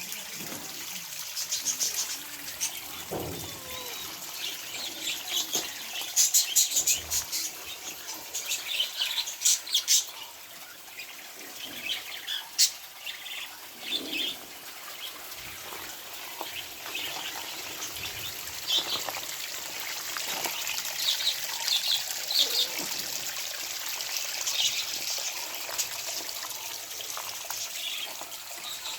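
Small aviary birds chirping and tweeting in quick, repeated short calls, busiest about six to ten seconds in, over the steady splashing of a small waterfall.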